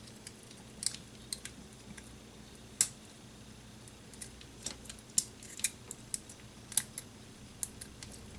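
Small plastic parts clicking and knocking as they are handled and pressed together to make them fit: scattered, irregular sharp clicks, the loudest about three and five seconds in.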